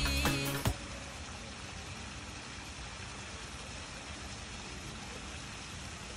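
Music with singing cuts off abruptly under a second in, leaving a steady, even hiss of outdoor background noise.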